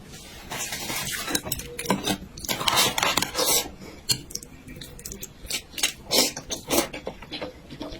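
Utensils clicking and scraping against dishes while eating, a run of sharp clicks with a longer noisy stretch in the first half.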